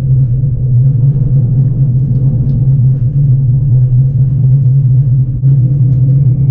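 Steady low running rumble of a passenger train, heard from inside the carriage, with a faint high tone joining near the end.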